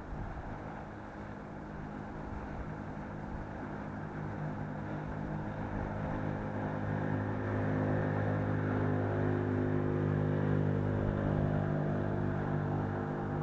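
A motor engine running at a steady pitch, growing gradually louder over the stretch as it comes closer.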